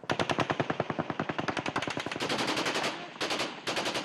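Rapid automatic gunfire, a machine gun or assault rifle firing one long sustained burst for about three seconds, then two short bursts near the end.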